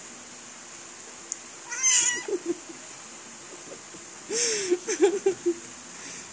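A kitten mews once, short and high-pitched, about two seconds in, while tussling with its mother cat. A little past four seconds comes a louder run of lower, choppy cat cries.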